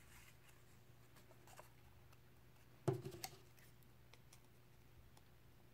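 Scissors trimming a small white paper circle, with faint paper handling and snipping and one sharper clack about three seconds in, over a faint steady hum.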